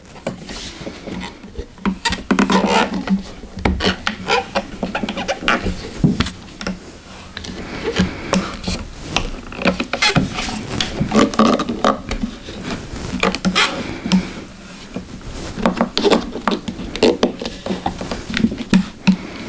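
Rubber bandsaw tyre being pressed into the groove of a metal 14-inch bandsaw wheel as the wheel is turned by hand on its axle: irregular knocks and rubbing of rubber, hands and metal.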